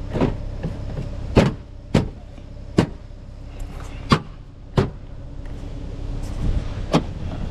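Seven sharp clicks and knocks at irregular intervals, as a part is fitted back on in a 2009 Saab 9-7X's trunk, over the low steady hum of the idling engine.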